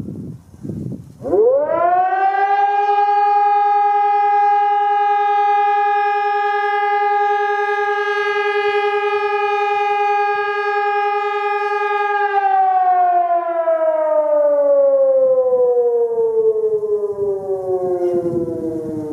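Roof-mounted civil defence siren sounding its test signal. It rises quickly to a loud steady wail, holds it for about ten seconds, then slides slowly down in pitch as it winds down.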